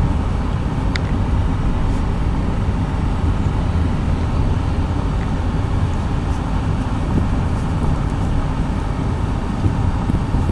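Vehicle driving with a steady low rumble of engine and road noise.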